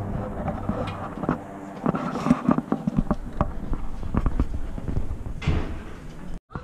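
Footsteps and scattered light knocks and clicks over a faint steady hum, cutting off abruptly near the end.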